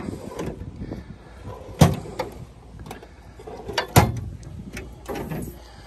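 Two sharp knocks about two seconds apart, with lighter clicks and rattles between them, from handling the toolbox and fittings in a ute's rear tool canopy.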